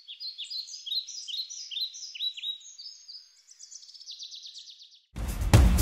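Small birds chirping: a string of short, quick chirps that fall in pitch, then a fast run of repeated notes. Loud music with a drum beat cuts in suddenly near the end.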